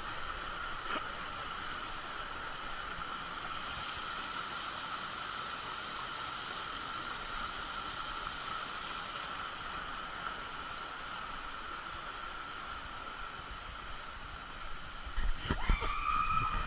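Waterfall pouring into its pool: a steady, even rush of falling water. A brief voice cuts in near the end.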